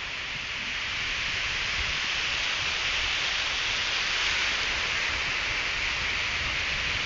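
Ocean surf: waves breaking and foam washing up the beach, a steady hiss that swells a little over the first couple of seconds.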